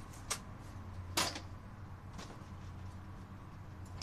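A few sharp clicks and one louder, brief knock about a second in, over a low steady hum.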